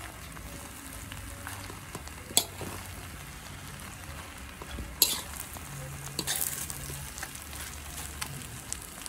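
Fried rice sizzling in a large metal wok as a metal spatula stirs and scrapes it, with sharp clanks of the spatula against the wok about two seconds in and again about five seconds in.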